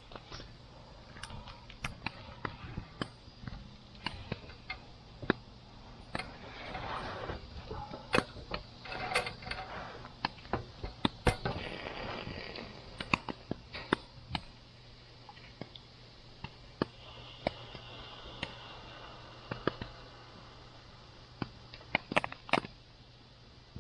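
Campfire crackling, with irregular sharp pops and snaps and a stretch of hissing and rustling in the middle.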